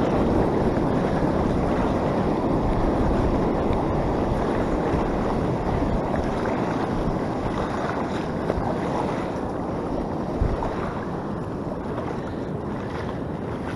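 Steady wind noise on the microphone over the wash of surf, easing slightly toward the end, with one brief thump about ten and a half seconds in.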